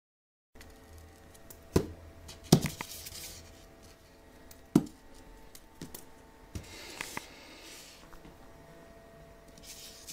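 Folding pocket knife being flipped and fumbled: a handful of sharp, scattered metallic clicks and clacks with brief scraping and rustling in between, starting after a moment of silence.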